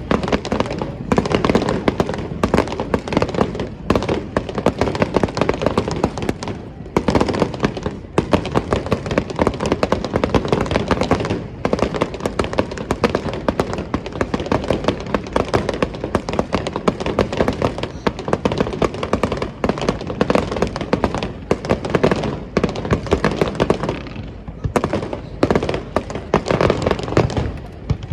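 Star mine fireworks barrage: aerial shells bursting in rapid, overlapping bangs and crackles, thinning briefly near the end.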